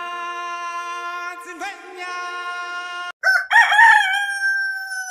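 Rooster crowing once, starting about three seconds in: a loud call that rises, holds and trails off. Before it, a steady held tone with many overtones cuts off suddenly.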